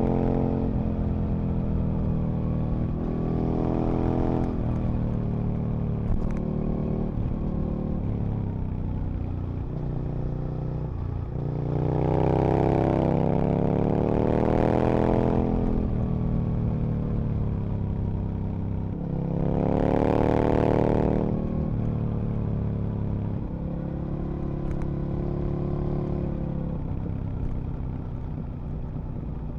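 Aprilia RSV Mille's 998 cc V-twin engine on the move, its revs rising and falling as it accelerates and eases off. There are two strong pulls to higher revs, about twelve and twenty seconds in.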